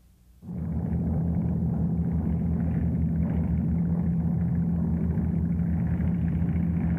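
Steady drone of piston aircraft engines and propellers: a constant hum over a rapid low throb, starting about half a second in.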